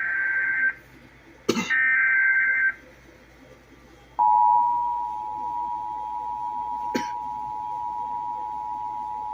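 Emergency Alert System SAME header: two short buzzy digital data bursts, each about a second long, encoding a severe thunderstorm warning. About a second and a half after the second burst, the EAS two-tone attention signal (853 and 960 Hz) starts and holds steady, loudest at its onset. There are sharp clicks about a second and a half in and again about seven seconds in.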